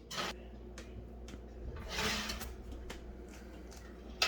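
Kitchen handling sounds: a knock, a few light clicks, a short scraping rattle about two seconds in, and a sharp click near the end, as of an oven door and a baking pan being handled.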